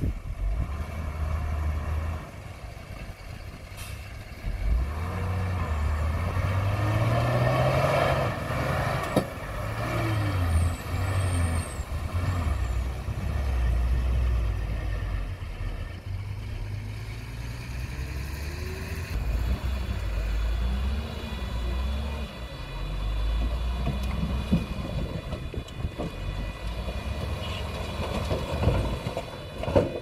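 Heavy diesel dump truck engines running and revving, rising and falling in pitch as the loaded trucks drive and manoeuvre.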